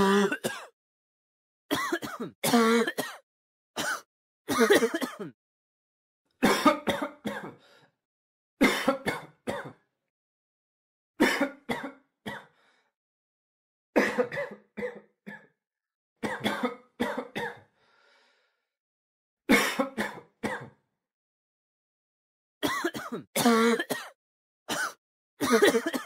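A person coughing in repeated short fits of two to four coughs each, about ten fits in all, with a second or two of silence between them.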